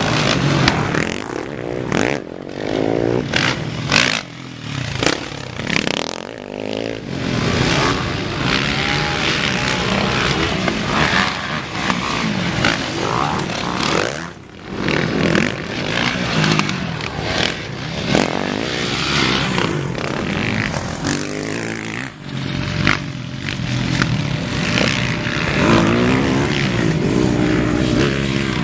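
Motocross dirt bike engines revving hard as the bikes race past on a dirt track, the pitch rising and falling as they accelerate, shift and pass.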